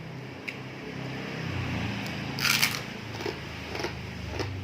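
Close-up mouth sounds of a person eating very spicy bakso meatball soup: chewing with small clicks, and one short, loud, hissy sound about two and a half seconds in.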